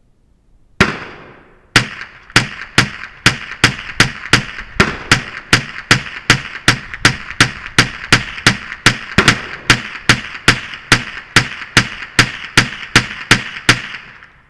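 Semi-automatic .22 LR rifle, a Colt M4 .22 by Umarex, fired in a long steady string. One shot comes first, then after a short pause about thirty more follow at a little over two a second, each with a short ringing tail.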